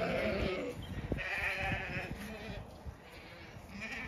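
Zwartbles ewes bleating: a bleat right at the start, a longer one from about a second in, and a shorter, fainter one near the end.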